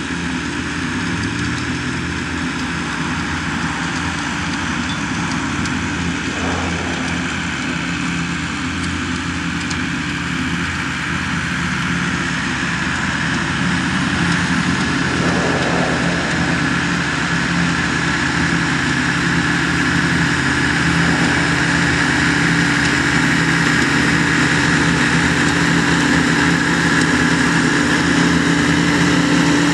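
Large Jacobson mower's engine running steadily under load while mowing, slowly growing louder.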